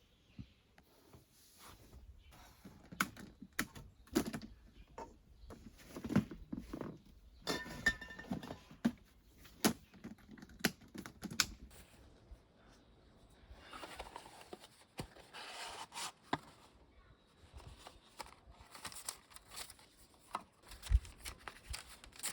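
Camping gear being handled: irregular clicks and light knocks, with a longer stretch of rustling about two-thirds of the way through.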